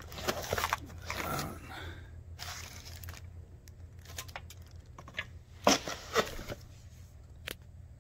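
Plastic wrapping crinkling and rustling as a pistol safe is handled, pulled out of its cardboard box and unwrapped, with a few sharp knocks and rustles, the loudest about six seconds in.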